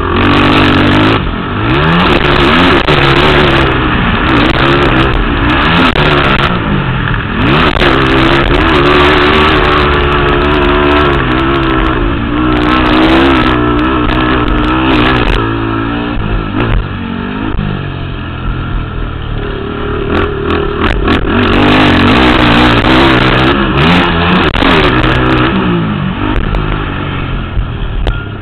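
Racing ATV (quad) engines revving hard, the pitch climbing and dropping repeatedly as the riders work the throttle and shift, with more than one engine heard at once.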